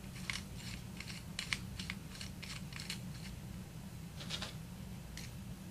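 Faint, scattered small metal clicks and light scrapes as the steel two-piece guide rod is reinserted into a 1911 pistol, over a steady low hum.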